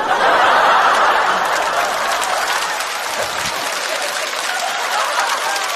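Studio audience applauding and laughing in a laugh break after a punchline. It is loudest at the start, then slowly dies down.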